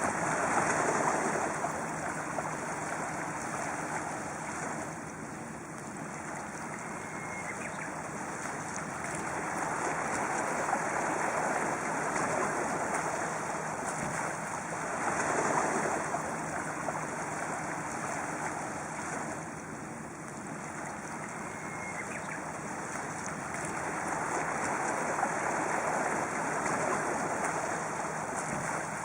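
Sea waves washing onto a rocky shore, a steady rush that swells and falls every several seconds. A Japanese bush warbler sings faintly twice in the background.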